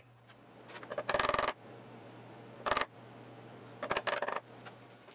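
Small metal clinks and clatters as a sawtooth picture-hanging bracket and screwdriver are handled in a recess on the back of a wooden sign. There are three short bursts: about a second in, near the middle, and around four seconds. A low steady hum runs underneath.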